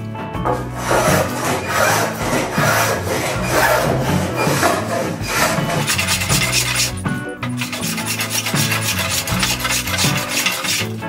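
A plane shaving wood along a laminated wooden mast in repeated strokes, the strokes coming faster and finer after about seven seconds. Background music plays underneath.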